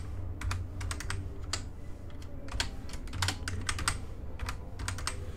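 Computer keyboard being typed on: short clicks in small irregular runs with brief pauses between them, as a password is entered and then entered again to confirm.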